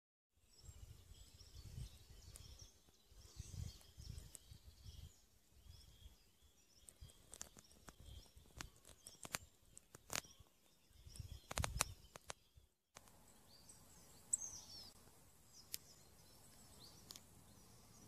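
Faint outdoor ambience: scattered high chirps of small birds over low rumbling buffets and a few sharp clicks. After a sudden cut about 13 seconds in, a steadier faint hiss with a few quick high bird chirps.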